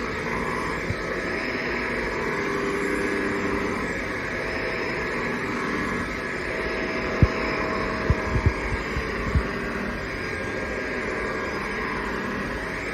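Hoover HL4 upright vacuum cleaner running with a steady hum, with a few short low knocks about seven to nine seconds in.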